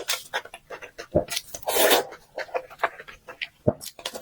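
Close-miked ASMR eating sounds: wet chewing and lip smacks in quick irregular clicks, with a longer slurp a little under two seconds in.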